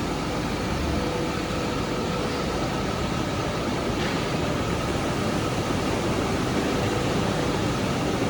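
Steady mechanical hum and air noise from an electroplating line's running equipment, with a faint, even whine.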